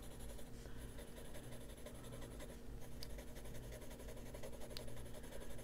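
Faber-Castell Polychromos colored pencil in green gold scratching lightly across paper as small spots are colored in, faint and steady.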